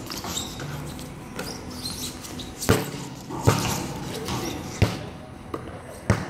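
Basketball bouncing on a concrete court: four separate bounces, starting about two and a half seconds in.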